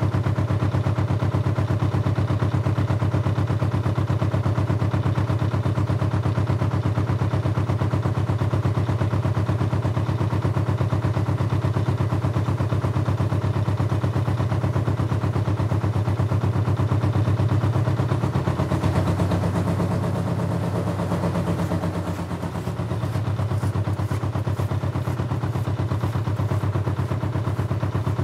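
An engine running steadily with a low, rapid, even chugging. Its tone shifts for a few seconds about two-thirds of the way through, then settles back.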